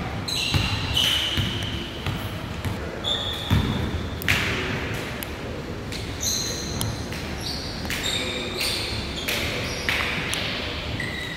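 Basketball game play on a hardwood gym floor: scattered thumps of the ball bouncing and players' feet, with short high squeaks of sneakers on the boards.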